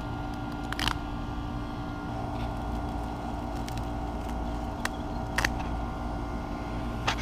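Green onion stalks snapping and rustling as they are picked by hand, with a few sharp snaps, the clearest about a second in and about five seconds in, over a steady background hum.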